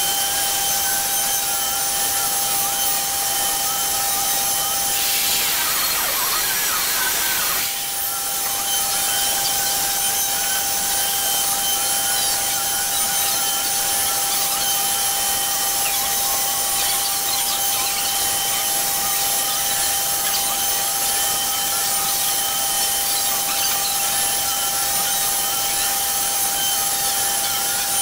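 CNC Shark's router spindle running at a steady high whine while a small end mill cuts a shallow oval pocket in a wooden panel, the cutting noise wavering as the bit travels. A harsher rushing stretch starts about five seconds in and stops abruptly near eight seconds.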